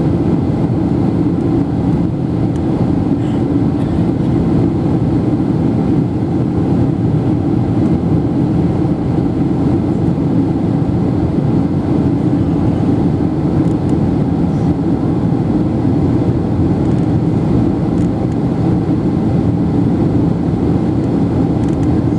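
Steady cabin noise of an airliner in flight: engine and rushing-air noise heard from inside the cabin, mostly low and unchanging.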